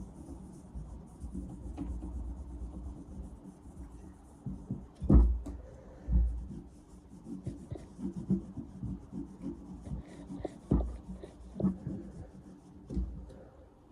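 Metal polish being rubbed by hand onto a carbon-steel axe blade, in uneven back-and-forth strokes, with a few dull knocks as the axe is handled.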